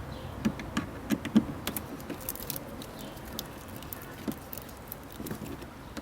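Hand tool working a screw out of plastic car trim: a run of irregular sharp clicks and small metallic taps, bunched in the first half and sparser later.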